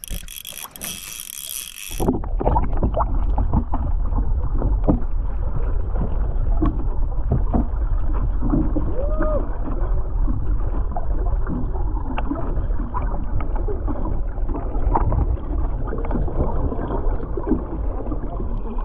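A fishing reel is cranked with quick ticking for about two seconds. Then the sound changes abruptly to a loud, muffled rumble of wind and water around the small outrigger boat, with scattered knocks and creaks.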